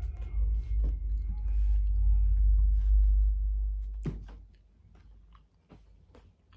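Person chewing a crunchy fried-tortilla chicken tostada close to the microphone. A strong low rumble runs through the first four seconds, then a sharp crunch about four seconds in, followed by quieter scattered crunching.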